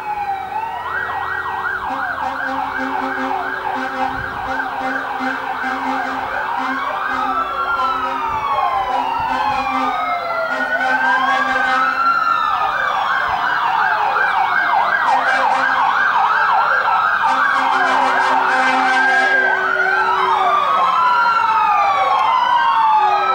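Several fire-truck sirens sounding together, slow rising-and-falling wails overlapping a fast warble, growing steadily louder as the trucks approach.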